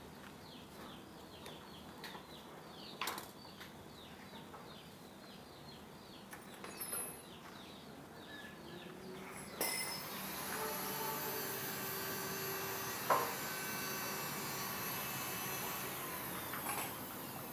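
Newly hatched chicks peeping in quick falling chirps, with a few knocks. About halfway through a steady mechanical whir starts suddenly and covers them.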